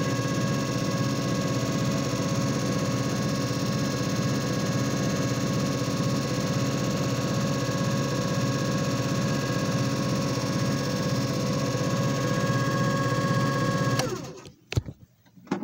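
JFJ Easy Pro disc repair machine running a repair cycle: a steady motor hum with several fixed tones, cutting off suddenly about 14 seconds in as the cycle ends and its red light goes out. A couple of sharp clicks follow.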